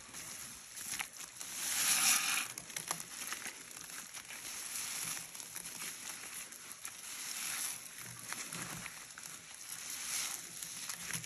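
A sponge being pressed, crumbled and squeezed through white cleaning powder and wet paste by gloved hands: a crunchy, crumbly hiss with small crackles, loudest about two seconds in.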